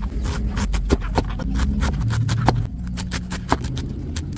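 Kitchen knife chopping thin slices of cabbage on a cutting board: sharp irregular knocks, about three a second, fewer in the second half, over a low rumble.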